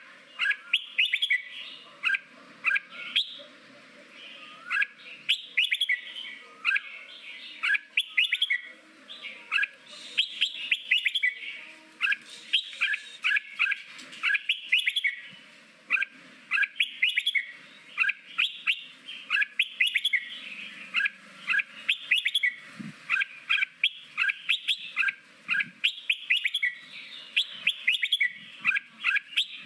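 Red-whiskered bulbul singing its wild-type forest song: short, quick phrases of chirping notes, repeated every second or two.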